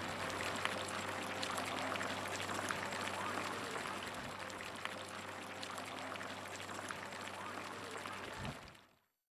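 Water pouring steadily, full of small splashes, over a low steady hum; it fades out near the end.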